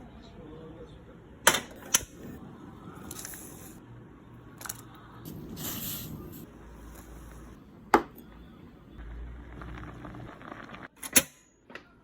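Clinks of hard tableware and shells against a dish while eating, with soft eating noises between. There are four sharp ones: about a second and a half in, at two seconds, about eight seconds in, and one near the end.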